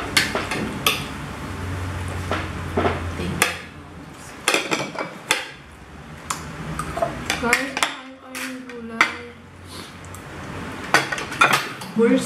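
Metal forks and spoons clinking and scraping against plates during a meal, many short sharp clinks scattered throughout.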